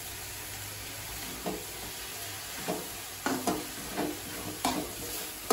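Moringa leaves and onions sizzling in an open aluminium kadai. From about a second and a half in, a steel ladle stirs them, clanking sharply against the pan several times.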